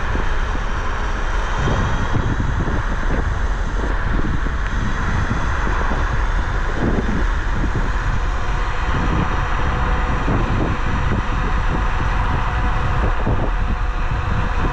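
Steady wind noise on the microphone of a rider on a Bluetran Lightning 72V electric scooter moving at speed, with a heavy low rumble beneath.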